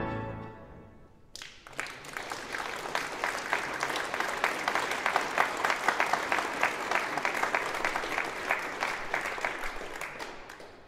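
The last pipe-organ chord dies away in the hall's reverberation, then an audience applauds, the clapping fading out near the end.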